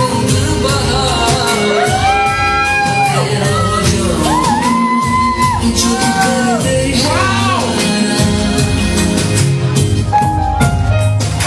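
Song with a singer's long held notes over a steady beat, playing loud as dance music.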